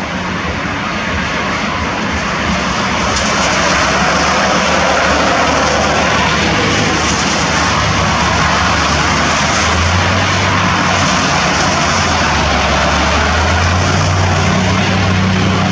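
A steady engine drone with a haze of noise over it, its low hum growing stronger about ten seconds in.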